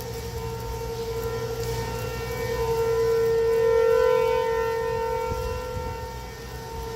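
Outdoor tornado warning siren sounding a steady tone that swells to its loudest about four seconds in and then fades, as the rotating siren sweeps past.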